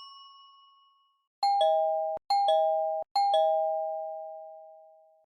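Doorbell 'ding-dong' sound effect from a phone app: a two-note chime, high then low, set off three times in quick succession about a second in. The first two are cut off by the next press and the last rings out and fades. The fading tail of an earlier single chime tone is heard at the start.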